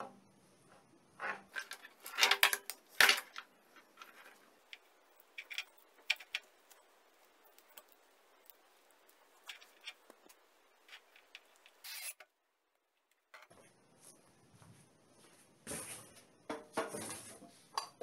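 Handling noises: a run of irregular clicks and light knocks from small hard plastic parts and cable being handled, loudest a couple of seconds in. After a brief dead gap, a clatter of hard objects knocked together near the end.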